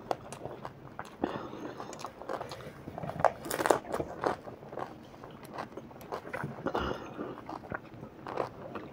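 Close-up eating sounds of pani puri stuffed with green chillies: crisp puri shells crunching and cracking, then wet chewing, with a louder burst of crunching about three and a half seconds in.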